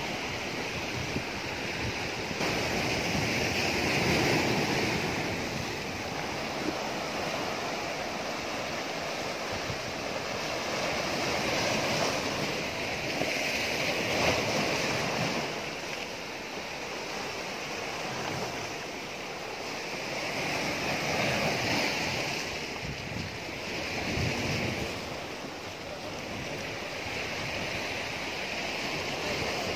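Sea surf breaking and washing over rocks, swelling and easing every few seconds.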